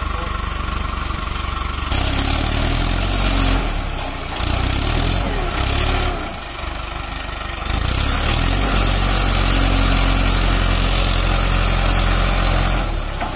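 Mahindra Arjun Ultra-1 555 DI tractor's four-cylinder diesel engine revving hard as the tractor is stuck in mud, the rear wheel dug in. The revs pick up about two seconds in, ease off briefly twice, then are held high through the second half.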